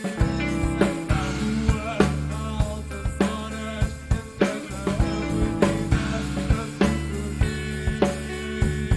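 A band's studio recording: a drum kit with regular snare and bass drum hits, over a steady bass line and held chords.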